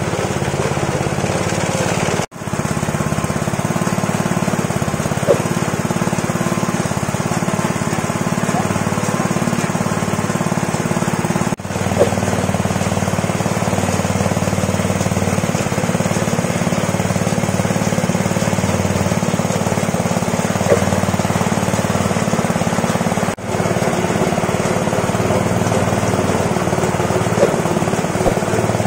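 Small 5.5 hp petrol engine running steadily under load, driving a grinder that crushes field snails into paste. A few short sharp cracks stand out now and then.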